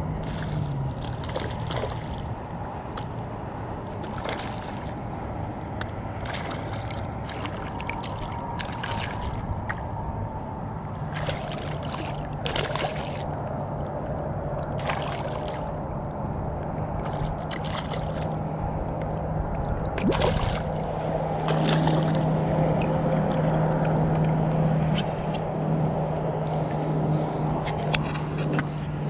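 Water splashing and sloshing as a hooked speckled trout thrashes at the surface and is brought to hand by a wading angler, with many short splashes. A steady low hum runs underneath and grows louder a little past halfway.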